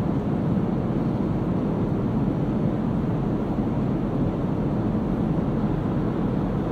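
Steady, even rush of engine and airflow noise inside the cabin of a Boeing 787-9 airliner in flight, with its Rolls-Royce Trent 1000 engines running.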